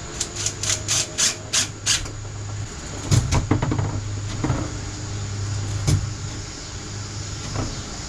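Wooden pantry drawer being worked on its slides: a quick run of short scraping strokes, then a cluster of wooden knocks and another knock a few seconds later as it is pushed in and shut. It is catching at the back.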